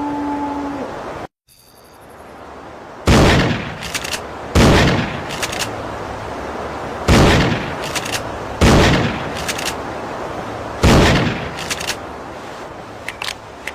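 Remington 870 Express pump-action shotgun fired five times at uneven intervals of about one and a half to two and a half seconds. Each shot is followed by a few short clicks, and a few more clicks come near the end. Before the shots, a faint steady pitched sound cuts off abruptly just over a second in.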